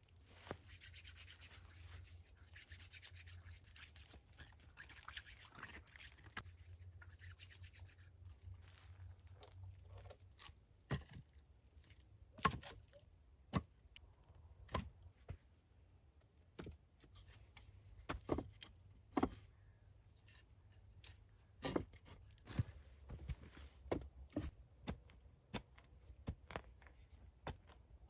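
Scraping or rubbing for about the first eight seconds, then a series of irregular sharp knocks and clicks.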